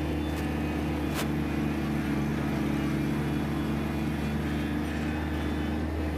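Zero-turn riding mower's engine running steadily as the mower drives, with one short click about a second in.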